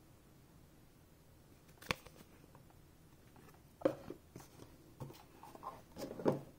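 Cardboard handling on a wooden tabletop: a single click about two seconds in, then a knock near four seconds followed by a run of soft knocks and scrapes as an empty black cardboard card box is moved and set down.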